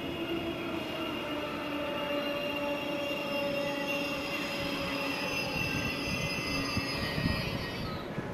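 Berlin S-Bahn class 477 electric train giving off several high whining and squealing tones that slide slowly down in pitch over a low rumble, then die away near the end. A few low knocks come about seven seconds in.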